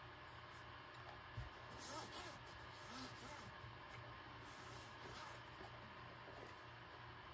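Near silence with faint rustling and rubbing as a paintbrush and paper towel work over a plastic walkie-talkie shell, and one soft knock about a second and a half in.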